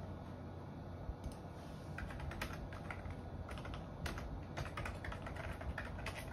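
Typing on a computer keyboard: irregular key clicks, sparse at first and quicker from about two seconds in, over a steady low hum.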